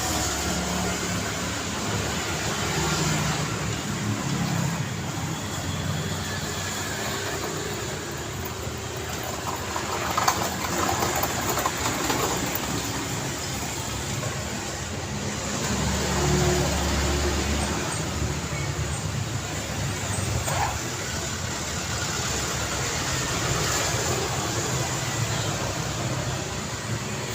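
City street traffic: a steady wash of cars and trucks driving past, with engine hum and louder vehicles swelling by every few seconds.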